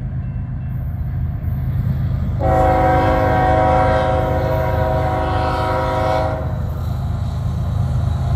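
Diesel freight locomotive's air horn sounding one long chord of about four seconds, starting about two and a half seconds in, over the steady low rumble of the approaching freight train.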